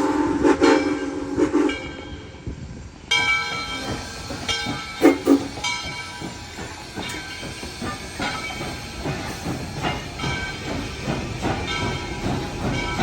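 The Nathan six-chime steam whistle on Southern Railway 630, a 2-8-0 steam locomotive, sounds a steady chord and stops about two seconds in. Then, from about three seconds in, steam hisses from the locomotive amid scattered knocks and clanks, with one loud knock about five seconds in.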